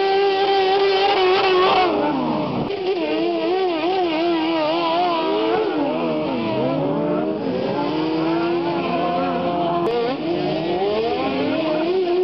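Several racing ride-on lawn mowers' small engines running at high revs, their overlapping pitches rising and falling as they accelerate and pass.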